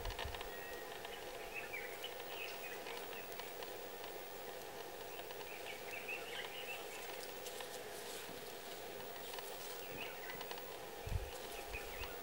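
Outdoor ambience: birds chirping now and then over a steady low hum, with one low thump near the end.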